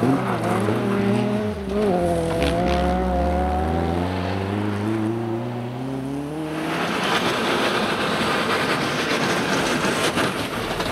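Rally car engine revving hard as it accelerates out of a corner, with a gear change about two seconds in; the note then slowly falls and fades as the car drives away. From about seven seconds a steady rushing noise takes over.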